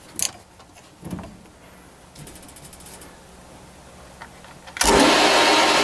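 A few light metallic clicks and a brief rapid ticking, then about five seconds in the Grizzly G0602 bench lathe switches on and runs loud and steady.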